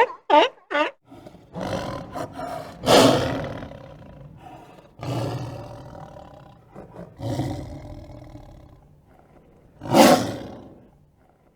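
A run of short, quickly repeated calls ends about a second in, then a big cat roars about five times in long, rough roars with pauses between, the loudest about ten seconds in.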